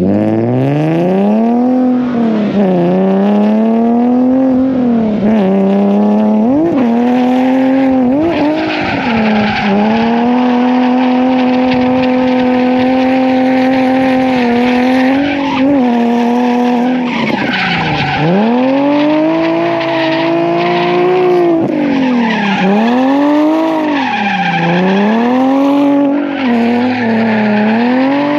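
Drift car engine revving hard through a tandem drift lap, its pitch swinging up and down with the throttle, held steady for a few seconds midway, then dropping sharply and climbing again, with tyres squealing as the car slides.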